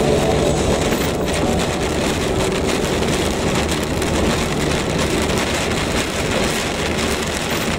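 Rain falling on a car's windshield and body, heard from inside the cabin as a steady hiss over low road and engine noise.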